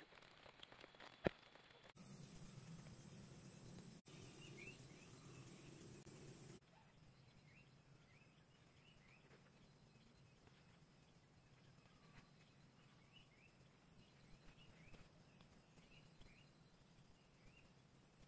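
Forest ambience: a steady high insect drone for a few seconds that cuts off abruptly, then faint small-bird chirps over a quieter insect hum. A single sharp click comes about a second in.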